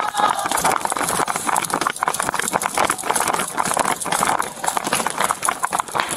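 Rapid running footsteps on a hard shop floor, heard close up from a body-worn camera on the runner, with the thumps and jostling of the camera and gear.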